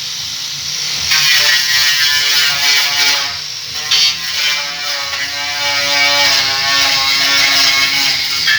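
A machine running with a steady rattling whir whose pitch wavers slowly, with a brief knock about four seconds in.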